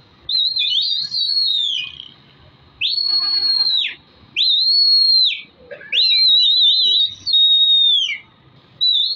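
A series of loud, high whistles, most about a second long, each sliding up at the start and down at the end, some warbling: a pigeon flyer whistling to a flock of fighter pigeons in the air.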